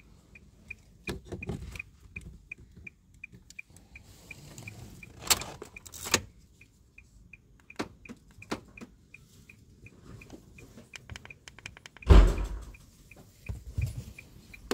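Plastic remote car keys clicking and clattering as they are handled, with a heavy thump about twelve seconds in. Under it runs a steady, rapid electronic beeping of about four short high pips a second, which pauses twice.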